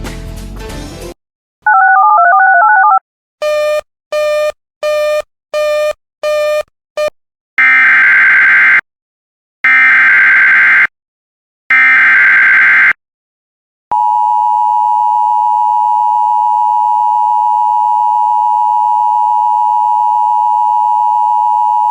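Emergency Alert System tones. A short warbling electronic tone and six short beeps, each shorter than the last, are followed by three one-second bursts of the digital SAME header data. Then the steady two-tone EAS attention signal begins about 14 seconds in and holds for about eight seconds. Music cuts off about a second in.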